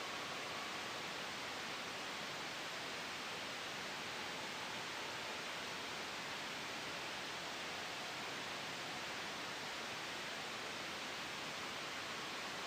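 Steady white-noise hiss, even and unchanging, blended with a soft wind-like rush.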